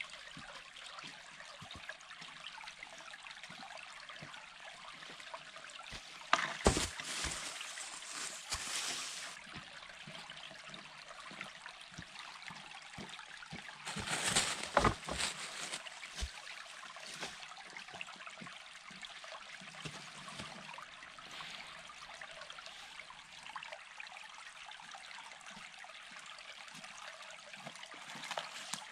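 Shallow creek trickling steadily over gravel. Twice, around seven and fifteen seconds in, there is a louder bout of cracking, scraping and knocking as dead branches are dragged through brush and footsteps fall on the stones.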